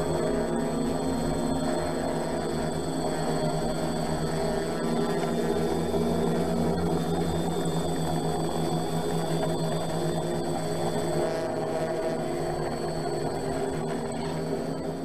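A steady droning hum made of several held pitches, unchanging in level throughout.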